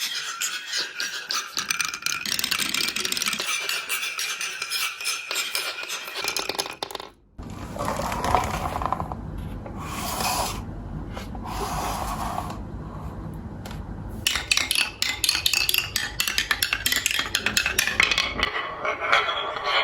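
Many marbles rolling and clattering down a toy marble run, a dense stream of rapid clicks and clinks. After a brief break about seven seconds in, the sound turns to a lower, steadier rolling rumble with a few swells. Rapid clattering returns near the last third.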